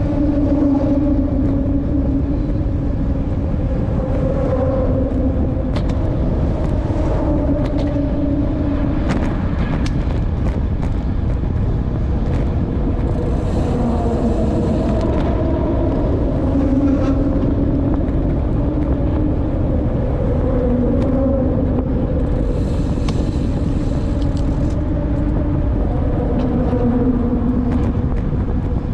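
Steady wind rumble on a helmet or handlebar microphone while riding a bicycle, with a low hum underneath that shifts pitch every few seconds.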